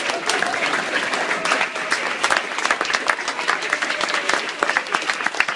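A small crowd applauding: many people clapping their hands in a dense, continuous patter.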